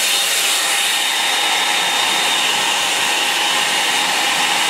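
Hair dryer blowing steadily on one setting, drying a wet watercolour wash.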